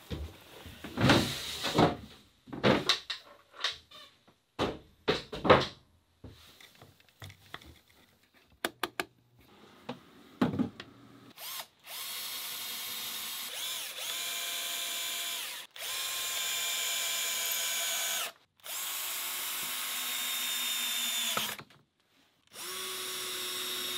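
Cordless drill running in four steady spells of a few seconds each in the second half, driving screws into a wooden fridge support frame. Before that come sharp knocks and clatter of wood and tools being handled.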